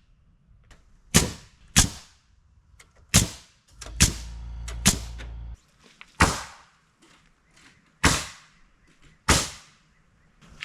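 Eight sharp cracks at uneven intervals of one to two seconds, from nails being driven into lumber. A low steady hum runs under them for about two seconds near the middle.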